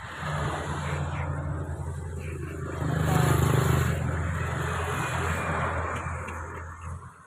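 Komatsu hydraulic excavator's diesel engine running steadily under load, rising louder for about a second around three seconds in as a loaded bucket is lifted and swung.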